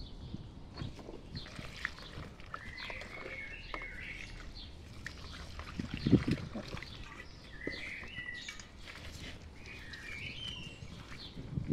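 Small birds chirping in short, repeated phrases, with a brief low thud about six seconds in.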